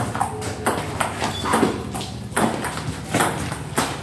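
Table tennis rally: the plastic ball clicking back and forth off the paddles and the table, about three clicks a second.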